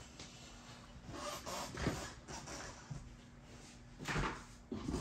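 Handling noises: two short spells of rustling and light knocking as supplies are fetched and handled, with a drawer- or cupboard-like open-or-close sound among them.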